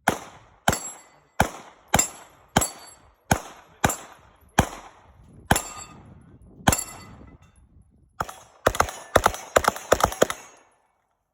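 Gunfire: a steady string of about ten shots, a little over half a second apart and slowing slightly, then after a short pause a rapid string of about eight shots near the end. A faint ringing tone follows several of the shots.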